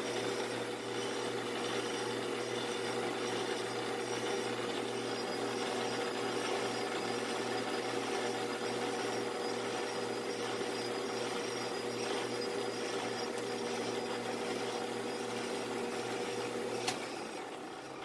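Metal lathe running under power, taking a finishing pass on round bar stock at higher spindle speed and slow feed: a steady motor and drive hum with the light noise of the tool cutting. A click comes near the end, then the sound fades.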